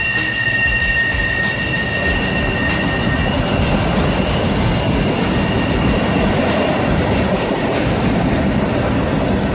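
Freight train autorack cars rolling past at close range, steel wheels running over the rails with a continuous rumble. A high, steady wheel squeal of two tones fades out within the first three seconds.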